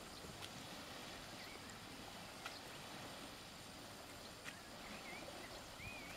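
Faint steady hiss of wind and small waves lapping on a sandy lake shore, with a few short bird chirps, the longest near the end.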